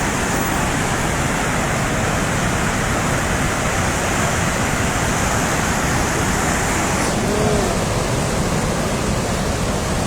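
The Teesta River in flood after a cloudburst: a steady, loud rush of fast, surging floodwater.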